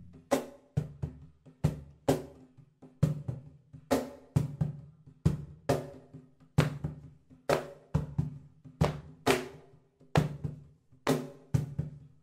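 Music with no singing: a drum kit playing a steady beat of kick, snare and hi-hat.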